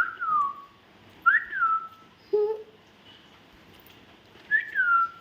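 Three clear whistles, each a quick rise and then a slower fall in pitch: one at the start, one about a second in, and one near the end. A short, lower sound comes in between, a little after two seconds.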